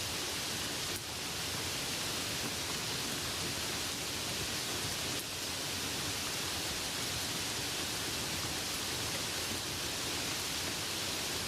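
Light rain falling steadily: an even hiss, strongest in the high pitches.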